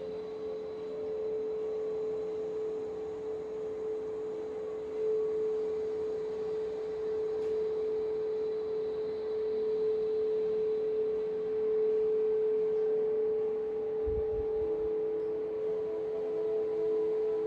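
A single steady, sustained mid-pitched tone with fainter overtones above it, swelling slightly in loudness: a meditation drone of the singing-bowl or tuning-fork kind, held without a break.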